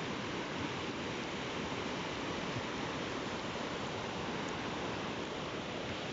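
Steady rushing of wind and choppy water on a reservoir shore, with wind buffeting the microphone.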